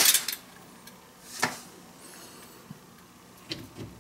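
A DeLorean's front steel sway bar being handled and pulled forward out of its bushings and mounts: a short loud rustle at the start, a sharp knock about a second and a half in, and a few faint clicks near the end.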